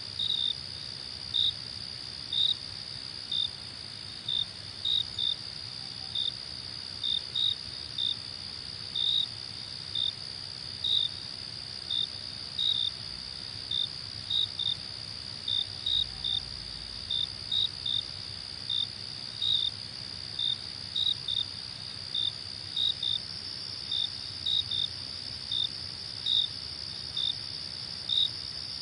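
Crickets singing: a steady high trill with louder short chirps over it, repeating irregularly about one and a half times a second.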